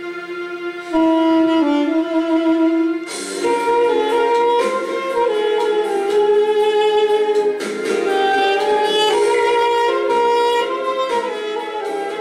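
Armenian duduk playing a slow melody with a reedy tone: a long held note that gets louder about a second in, then the melody moves on over a fuller sound from about three seconds in.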